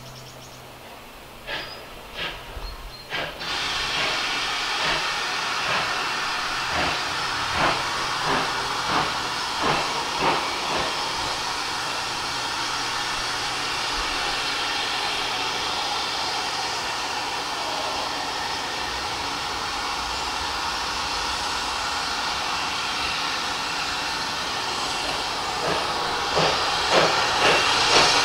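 GWR 5700 class pannier tank steam locomotive working a train. A steady loud steam hiss sets in a few seconds in, with slow exhaust beats at first. Near the end the exhaust beats grow louder and quicker, about two to three a second, as the locomotive approaches.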